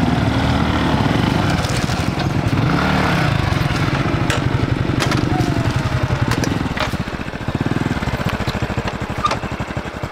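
Small motorbike engines running at idle, with one engine revving up and back down about three seconds in, and a few sharp clicks.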